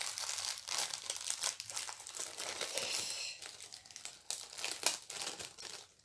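Plastic packaging of a diamond painting kit crinkling and rustling as it is handled and folded away by hand, in a quick irregular run of crackles.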